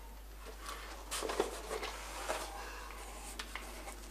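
Rustling and light knocks of cardboard-packed table fireworks being handled and taken out of a cardboard carton, with the loudest cluster of knocks a little over a second in and a few scattered clicks later.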